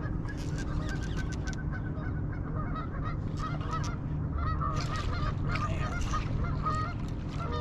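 A flock of waterfowl honking over and over in short calls, thickest in the middle stretch, over a steady low rumble of wind and water.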